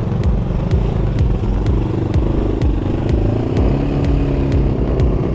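ATV engine running while riding. Its pitch rises and falls with the throttle from about three seconds in.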